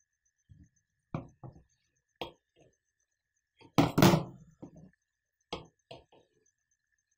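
A tablespoon clinking and knocking against a container while honey is spooned into the ginger and mixed. There are a dozen or so light taps, with one louder, longer clatter about four seconds in.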